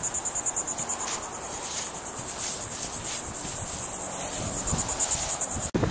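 Insects trilling outdoors in a steady, high-pitched pulsing buzz that cuts off suddenly near the end.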